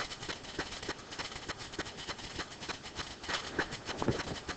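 Quiet room tone with faint, irregular small clicks and taps scattered through it.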